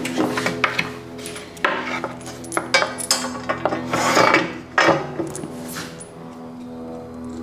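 Stainless steel carriage bolts clinking and scraping against a steel mounting plate as they are pushed up through its holes and the plate is shifted on a plywood bench top: irregular metallic clinks and rubs.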